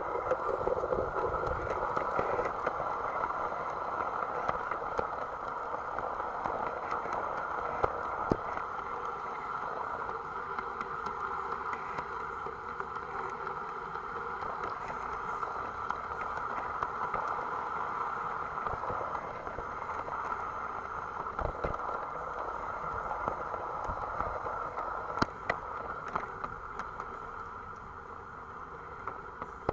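Gauge 1 model train running along its track, heard from on board: a steady hum of the running gear with scattered sharp clicks of wheels on the rails.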